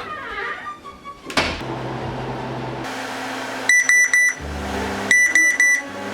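Sonic Bomb alarm clock's alarm beeping: two quick runs of four loud, high-pitched beeps, the second starting about a second and a half after the first. A steady low hum runs underneath.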